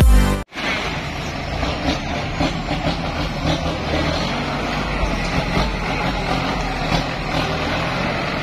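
Electronic intro music cuts off about half a second in, and then a Kubota M8540 tractor's diesel engine runs steadily.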